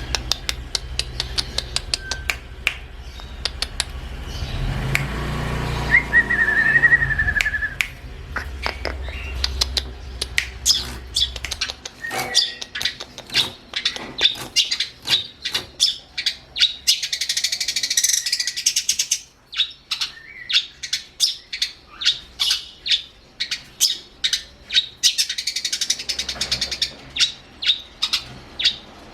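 Long-tailed shrike (cendet) calling: a long run of sharp, short notes, at about two a second in the second half, broken twice by harsh rasping chatter. A low rumble runs beneath the first part.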